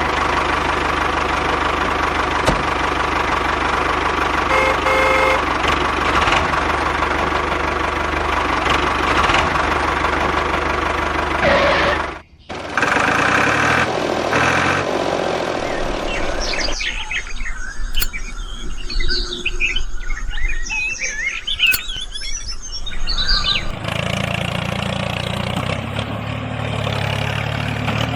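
A small motor running steadily, broken by a few sudden cuts. In a quieter stretch in the middle, birds chirp.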